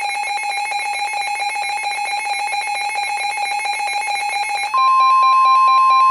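Reecom weather radio's electronic alert alarm beeping in rapid, even pulses. About three-quarters of the way through, the steady 1050 Hz NOAA Weather Radio warning alarm tone starts over it, the signal that a warning broadcast is about to follow.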